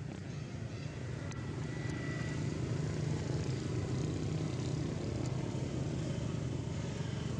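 A steady low engine hum, like a motor running nearby, growing slightly louder about two seconds in.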